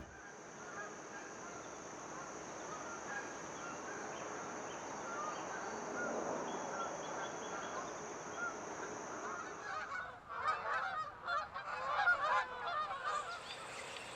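A flock of geese honking, many short overlapping calls that grow busier and louder about ten seconds in. A steady high-pitched hiss runs beneath them and stops at that point.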